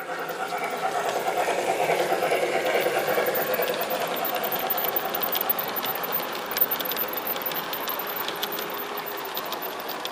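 Large-scale garden-railway model train, led by a model of a Harz narrow-gauge steam locomotive, running past on its track: a steady mechanical whirr with light ticks from the wheels in the second half.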